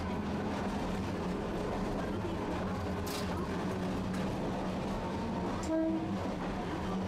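Tosaden streetcar running, heard from on board: a steady hum over a rumbling wheel and track noise. A short clear tone with a click comes about six seconds in.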